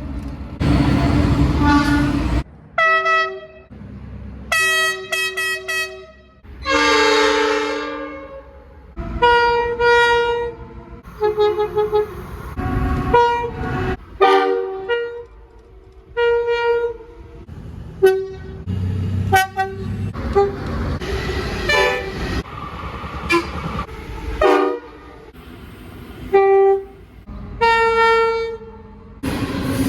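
Locomotive horns sounding a quick run of short and long blasts, several multi-note chime horns of different pitch in turn. A low train rumble runs between the blasts.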